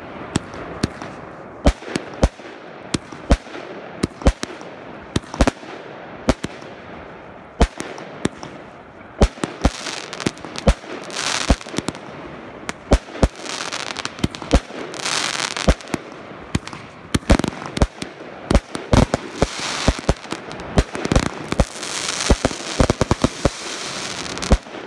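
Aerial fireworks bursting: a string of sharp bangs, irregularly spaced, with dense crackling and hissing from the burning stars filling much of the second half.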